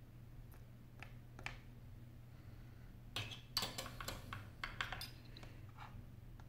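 Light clicks and clinks of small tools and phone parts being handled on a workbench. A couple of single taps come first, then a quick cluster of them in the middle, over a steady low hum.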